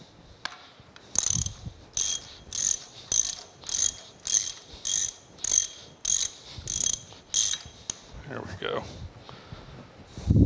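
Ratchet wrench clicking through about a dozen quick, even back-strokes, about one and a half a second, as a nut is run off a threaded stud of a steam locomotive stoker engine's cylinder. A short scrape and a heavy knock follow near the end.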